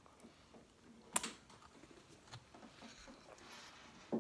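Quiet eating sounds: metal spoons scraping and tapping in bowls of ice cream, with scattered small clicks and one sharp clink about a second in.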